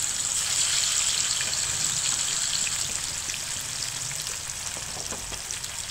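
Masala-coated fish pieces deep-frying in hot oil in a pan: a steady sizzle with scattered crackling pops. It swells just after a piece is slid into the oil, then eases slightly toward the end.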